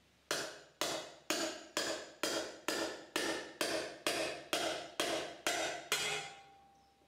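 A hammer strikes a steel race driver about thirteen times, roughly two blows a second, each hit ringing briefly. It is driving a new, freezer-chilled bearing race into its bore in a Dana 60 axle housing.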